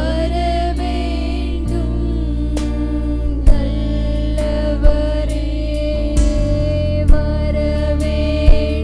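A women's group singing a Tamil Christian worship song together, backed by a band with held bass notes and sharp drum hits every second or two.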